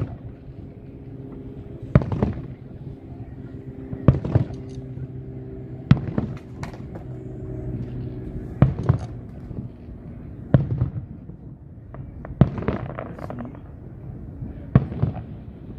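Aerial fireworks shells bursting: about a dozen sharp bangs, roughly one every two seconds, some in quick pairs, with a steady low hum underneath.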